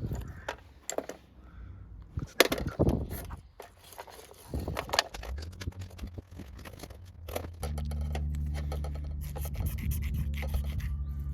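Irregular scraping, rubbing and clicking of things being handled. About eight seconds in, a steady low hum joins.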